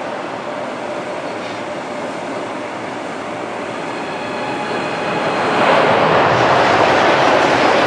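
CRH high-speed electric trains at a station: a steady rumble with faint whining tones, then about five and a half seconds in a sudden, much louder rush of air and wheel noise as a high-speed train comes past.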